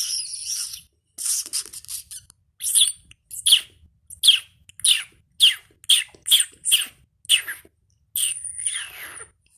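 Squeaky lip noises made by a person: a few hissing, sputtering sounds, then a quick run of about ten short, high chirps that each fall in pitch, and a longer squeak near the end.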